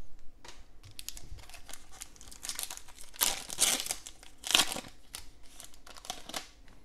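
Foil wrapper of a Donruss football trading-card pack crinkling as it is handled and torn open, a string of short crackles, loudest a little past the middle.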